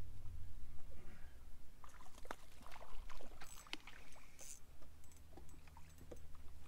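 Small water lapping against a boat hull, with scattered light clicks and taps from rod and reel handling over a low steady hum.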